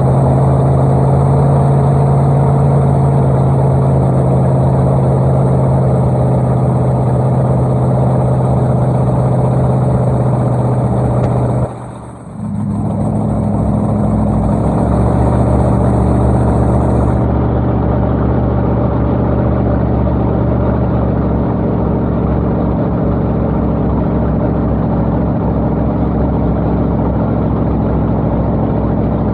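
Big boat engine running loud and steady with a deep note. About twelve seconds in the sound drops out briefly and comes back at a changed pitch.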